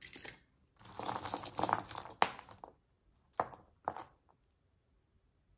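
Metal chains, charms and beads of a pile of costume jewelry jingling and clinking as hands rummage through it and pull a beaded bracelet free. A run of rattling in the first few seconds, then two sharp clicks about half a second apart.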